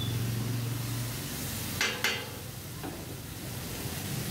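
Metal spatula scraping and stirring kothu parotta on a hot flat griddle over a steady sizzle, with a few sharp scrapes of metal on metal about two seconds in.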